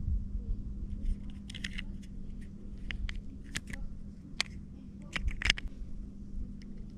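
Hand work with small tools and parts: scattered sharp clicks and short scrapes, a quick cluster a second and a half in and a louder pair past the five-second mark, over a steady low hum.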